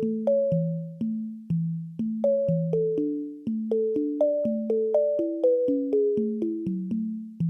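Instrumental song intro on electric piano or keyboard: a steady bass figure of two alternating low notes about twice a second, with a higher melody stepping up and down over it, each note struck and fading.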